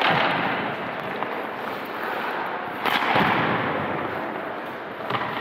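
Two sharp cracks of an ice hockey puck being shot or striking, one at the start and one about three seconds in, each ringing out in a long echo off the rink.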